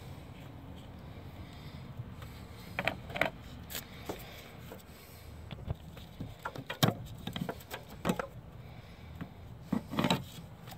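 Gloved hands handling a removed bolt and the aluminium AC suction line fitting at the firewall: scattered light metal clicks, knocks and scrapes, a second or two apart, with a few louder knocks near the end.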